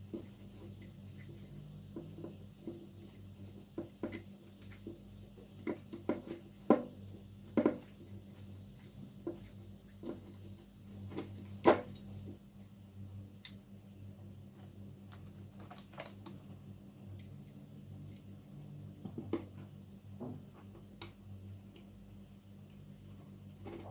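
Scattered light clicks and knocks of vacuum cleaner parts being handled, a few sharper knocks among them, over a steady low hum.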